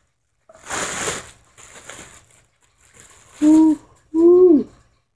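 Clear plastic bag crinkling and rustling in a few bursts as a scooter is pulled out of it. Near the end come two short, loud hooting tones, the loudest sounds; the second falls in pitch as it ends.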